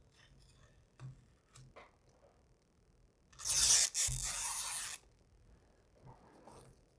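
Vinyl wrap film being cut along a car grille bar in one fast stroke: a loud rasping rip about three and a half seconds in, lasting about a second and a half with a short break near the start. A few faint clicks and rustles of handling come before it.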